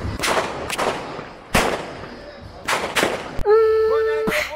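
Six sharp, explosive bangs of New Year's Eve pyrotechnics in about three and a half seconds. Then a voice holds a long, steady note, cut through by one more bang near the end.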